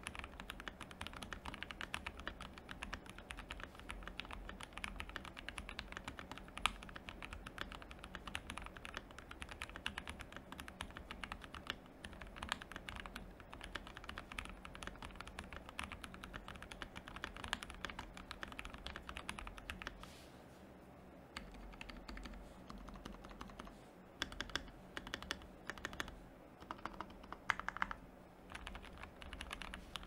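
Fast typing on an Akko SPR67 mechanical keyboard fitted with lubed Taroball switches, an FR4 plate and PBT keycaps: a dense run of keystroke clacks. About two-thirds of the way in the typing stops briefly, then returns in shorter bursts with pauses.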